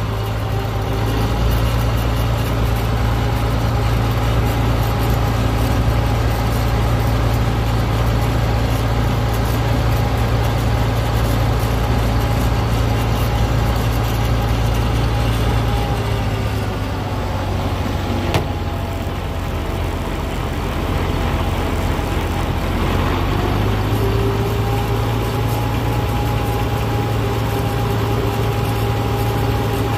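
Oliver 1550 tractor engine running steadily as it drives, heard close up from the seat. Its note eases off about halfway through and picks back up a few seconds later.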